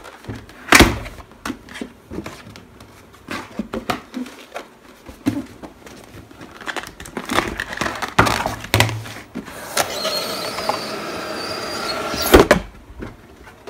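Cardboard packaging being opened: scattered taps and scrapes, then a drawn-out squealing rub of about two seconds late on as the printed outer box slides up off the brown inner cardboard box, ending in a knock.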